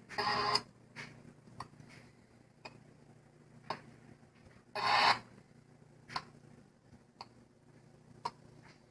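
Dell Inspiron 3531 laptop making its faulty noise: irregular sharp clicks, with two louder half-second bursts of noise, one right at the start and one about five seconds in, over a steady low hum.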